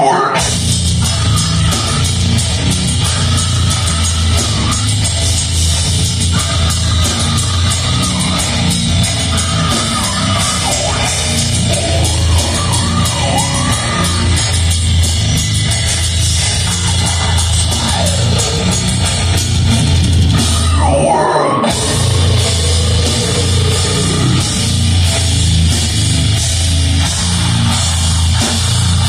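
Heavy metal band playing live, heard from within the crowd: heavy guitars, bass and pounding drums under a vocalist. The music cuts out for a split second about three-quarters of the way through, then the band crashes back in.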